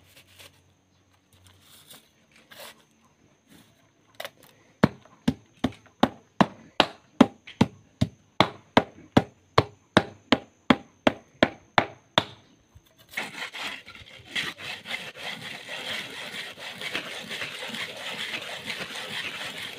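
A hammer tapping a metal brick mould packed with wet cement mix, a steady run of sharp knocks at about three a second, compacting the mix. About thirteen seconds in it gives way to a wooden board scraped rapidly back and forth across the mould's top, a continuous rasp, striking off the excess cement.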